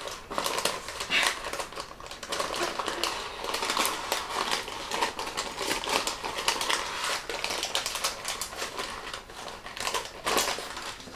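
Baking parchment crinkling and rustling in quick, irregular crackles as hands lift it to roll a slab of raw minced meat in a baking tray.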